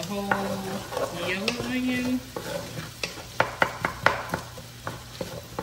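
Wooden spatula stirring and scraping diced potatoes sautéing in oil in a nonstick skillet, over a light sizzle. From about three seconds in, the spatula clicks repeatedly against the pan.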